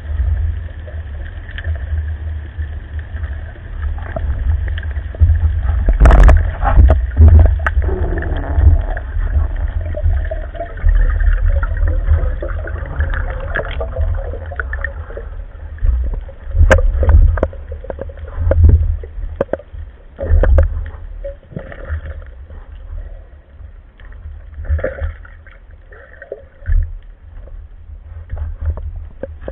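Underwater sound picked up by a camera in its housing: a heavy low rumble of water moving over the housing, with scattered sharp clicks and knocks from the diver's movements and gear.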